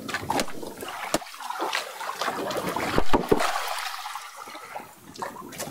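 Water splashing and trickling, with several sharp knocks; the loudest comes about three seconds in.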